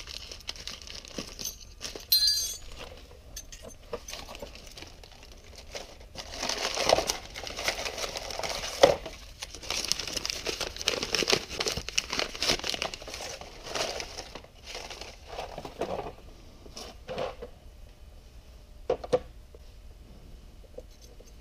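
Plastic packaging crinkling and tearing as a new set of brake-pad retainer clips is unwrapped, with small metallic clinks from the clips. One ringing clink comes about two seconds in, and the densest rustling falls in the middle.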